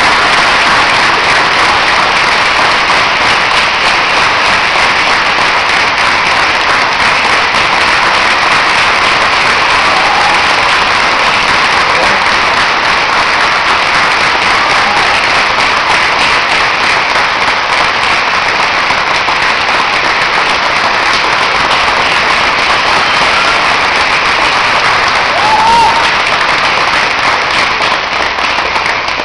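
Theatre audience applauding: dense, steady clapping that holds throughout.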